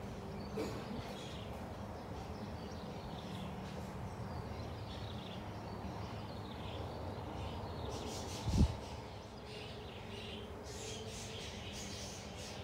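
Background ambience: a steady low hum with faint bird chirps over it, and a single dull thump about eight and a half seconds in.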